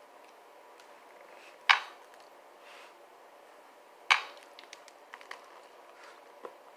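Two sharp crunches about two and a half seconds apart as packed cornstarch is bitten straight from the box, followed by a few softer clicks.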